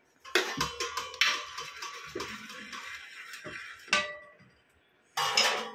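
White plastic spatula scraping and knocking around a hot pan as it spreads oil to grease the pan. There is a run of clicks and scraping, and one sharper knock with a brief ring about four seconds in.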